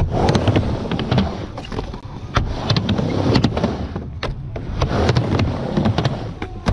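Skateboard wheels rolling on a half-pipe ramp, a steady loud rumble, with repeated sharp clacks as the board's trucks and tail strike the lip of the ramp.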